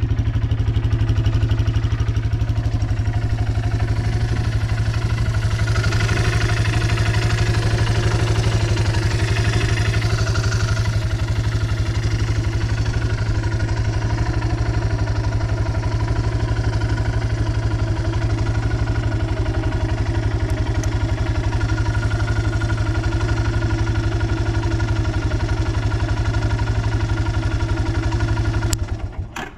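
Yamaha Breeze 125 ATV's four-stroke engine idling steadily with no abnormal noise, then switched off about a second before the end.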